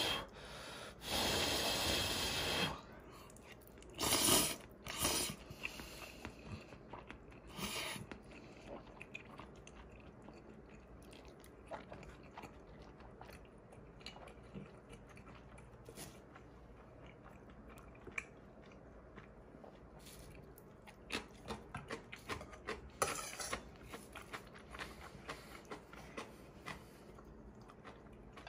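Close-miked mukbang eating of black-bean instant noodles and cold soup: a few loud slurps in the first several seconds, then soft chewing with small clicks and crunches, thicker near the end.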